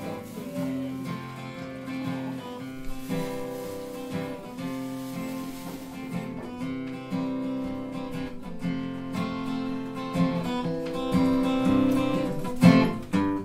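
Acoustic guitar strummed as a song's instrumental intro, played live. The handmade guitar is by luthier Richard Osborne. It grows louder near the end.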